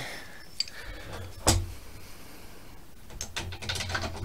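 AR-15 bolt carrier group being slid by hand into the upper receiver: one sharp metal click about one and a half seconds in, then a few lighter metallic clicks near the end.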